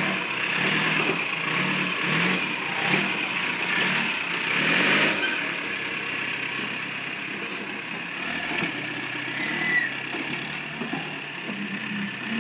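Diesel engine of a backhoe loader running as it works its arm and bucket, its pitch rising and falling slightly with the load.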